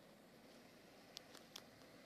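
Near silence: faint outdoor background with a few faint clicks in the second half.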